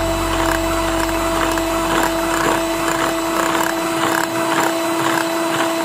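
Electric hand mixer running steadily, its beaters churning a thick creamy mixture in a bowl, with a constant motor whine.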